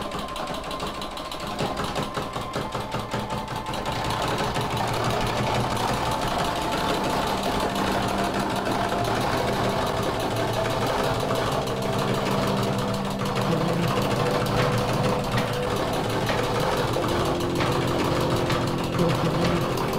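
Door lever handle jiggling very fast, a continuous rapid metallic rattle of the handle and latch.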